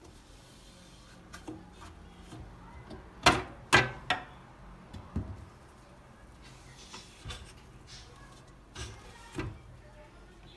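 A series of sharp knocks and clatters from objects being handled and set down, the two loudest close together about three seconds in, then a few softer ones and a pair more near the end.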